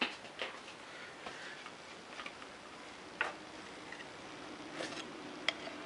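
Scattered light clicks and taps at irregular spacing from handling the drill press and its clamped work, with a faint steady hum coming in about three and a half seconds in.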